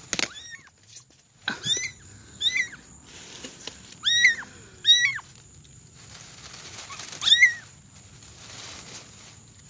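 Tiny kitten crying in distress while trapped and tangled in vines: a string of short, high-pitched mews, each rising then falling, about seven in all, the loudest near the end.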